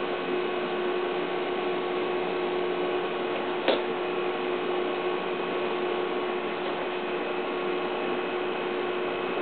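A steady machine hum with a few held tones over an even whir, and one sharp click a little under four seconds in.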